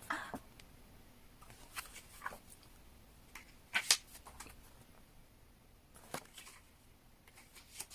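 Pages of an album photobook being turned and handled: scattered light paper rustles and soft taps, the loudest a pair of sharp snaps about four seconds in.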